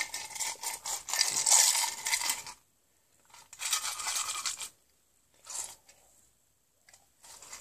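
A small plastic bottle of melted-ice water handled and shaken close to the microphone: dense rattling, rustling noise for about two and a half seconds, then a few shorter bursts of handling as the bottle is moved.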